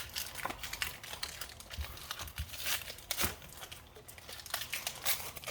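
Foil Pokémon booster pack wrapper crinkling as it is handled and torn open, a run of irregular sharp crackles.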